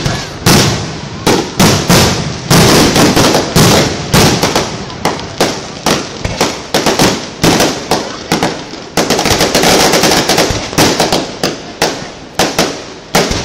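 Fireworks display: aerial shells bursting one after another, sharp bangs several times a second over a dense crackle, with an unbroken stretch of crackling about nine seconds in.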